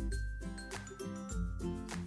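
Background music: an upbeat instrumental with a steady beat and a bass line.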